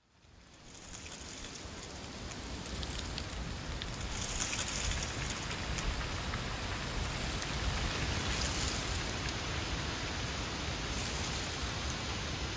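Wind blowing through autumn trees with dry leaves rustling, fading in over the first second or two.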